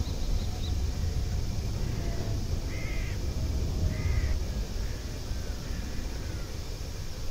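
A crow cawing twice, about a second apart, with a few fainter calls after, over a steady low rumble that slowly fades.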